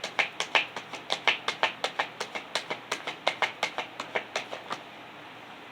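Tarot cards being shuffled by hand: a quick, even patter of card slaps, about six a second, that stops near the end.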